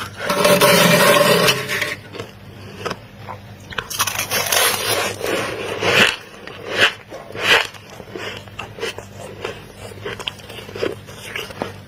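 Freezer frost crunching as it is scraped and bitten: a long, loud crunch over the first two seconds, then a run of shorter crunches and sharp clicks.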